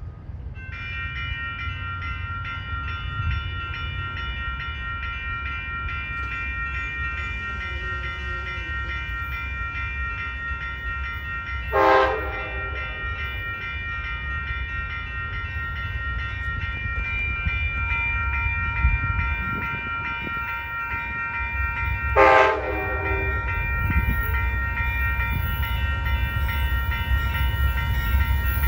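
Amtrak GE P42DC diesel locomotive approaching, its engine rumble growing louder, with two short horn blasts about ten seconds apart. A warning bell rings steadily throughout.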